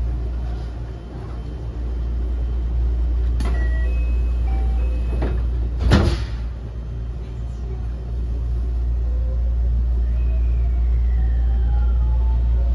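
Cabin hum of a JR West 223 series 2000-subseries electric train standing in a station, with a few short beeping tones, then a loud thud about six seconds in as the doors shut. From about nine seconds in, the Toshiba IGBT VVVF inverter starts its whine as the train pulls away, one tone rising slowly while another falls.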